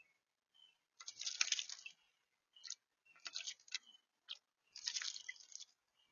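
Blue jay splashing in water in bursts: three longer bouts of splashing, the first about a second in and the last near the end, with brief splashes between.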